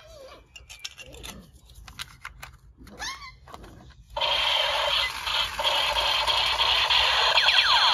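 Battery-powered toy military gun, first handled with faint clicks, then switched on about four seconds in: a loud electronic sound effect from its small built-in speaker starts abruptly and keeps going, with sweeping tones near the end.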